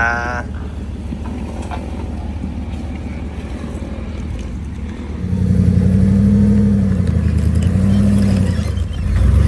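Off-road rig's engine running low and steady, then throttled up about five seconds in under load, its pitch rising and easing off a couple of times as it works over the rocks.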